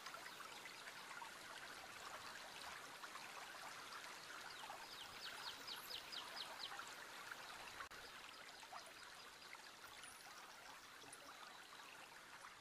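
Faint, steady rush of a small river running over rocky rapids. A quick run of high chirps sounds about five seconds in.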